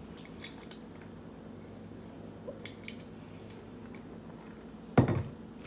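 Someone drinking from a lidded plastic tumbler: quiet sips with a few small clicks, then a short loud thump about five seconds in.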